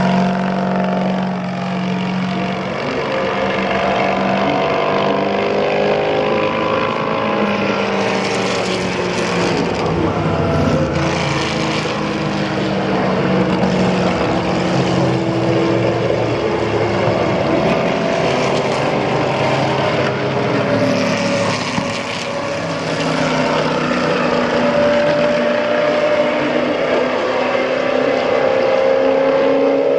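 V8 engines of 'big banger' CanAm sports racing cars running through Eau Rouge one after another. The engine notes rise and fall as each car accelerates, lifts and passes.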